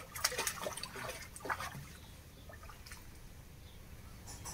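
A dog wading through shallow muddy ditch water, splashing. There are several short sharp splashes in the first second and a half, then a faint steady trickle of water.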